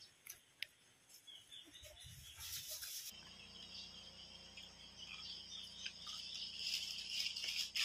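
Insects chirring steadily, louder near the end, over a faint low hum. In the first three seconds there are a few soft clicks and a short crackling hiss from fingers tearing crispy fried chicken.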